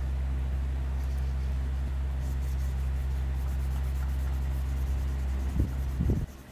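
A steady low hum, with faint scratchy strokes of a felt-tip marker on paper. Two knocks come near the end, and then the hum cuts off suddenly.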